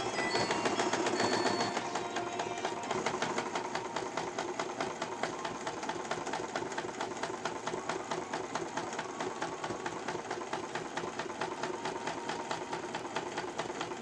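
Domestic electric sewing machine stitching through corduroy fabric, its needle mechanism clattering in a fast, even rhythm. It stops suddenly near the end.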